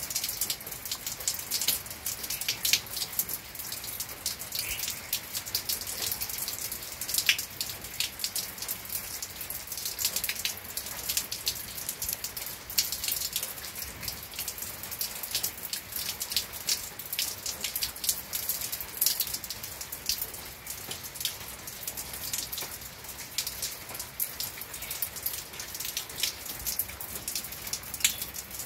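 Steady rain falling, a dense patter of many drops.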